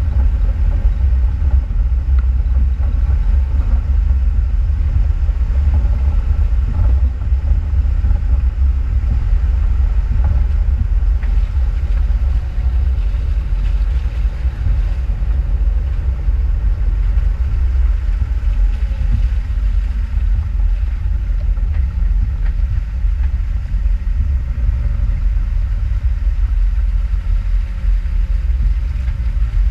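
Off-road vehicle driving on a trail: a steady low rumble of engine and ground, with the engine note shifting up and down in the second half.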